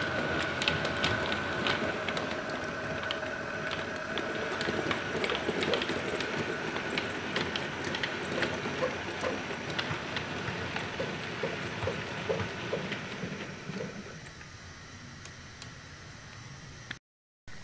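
A model railway diesel locomotive runs slowly along the track hauling a breakdown crane train, on a test run over newly laid track. Its motor gives a steady whine and the wheels click over the rail joints. The sound fades about three-quarters of the way through as the train draws away, then cuts out briefly near the end.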